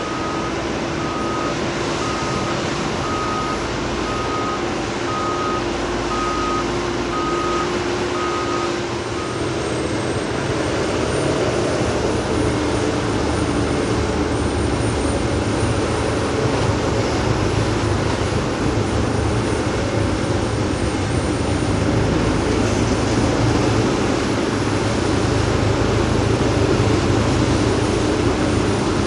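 Heavy diesel construction machinery running steadily while a reversing alarm beeps a little over once a second; the beeping stops about nine seconds in, and the engine noise carries on and grows slightly louder.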